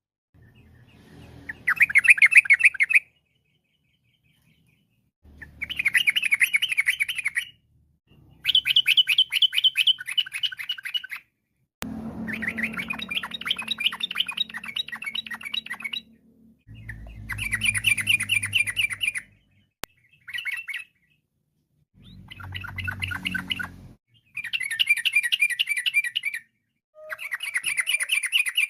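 Yellow-vented bulbul (trucuk) singing in repeated bursts of rapid, rhythmic chattering phrases, each lasting about two seconds, with short silent gaps between them.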